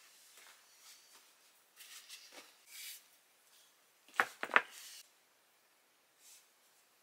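Clothes rustling as garments are handled and laid into a hard-shell suitcase, with two sharp knocks close together about four seconds in.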